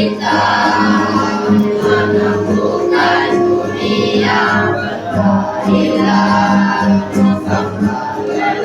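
School choir of young teenage students singing together, holding sustained notes.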